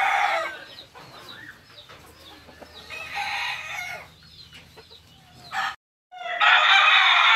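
Roosters crowing: a crow trails off at the start, a fainter one comes about three seconds in, and after a short gap a loud crow begins near the end.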